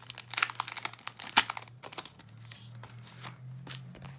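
Packaging crinkling and rustling as items are handled. The crinkling is dense for about two seconds, with one sharp crackle near the middle, then thins to a few scattered crackles.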